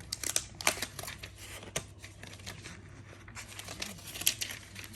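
Packaging being handled as a new iPad is unwrapped from its box: irregular crinkling and rustling of paper or plastic wrap, with small clicks and scrapes.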